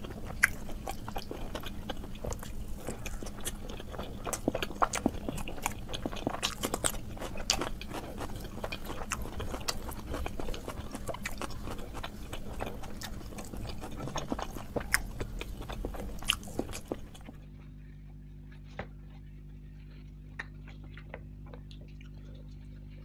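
Close-miked eating sounds: a man chewing luchi and curry with wet mouth clicks and smacks. About 17 s in, it cuts to a quieter recording with a steady low hum and only occasional soft chewing clicks.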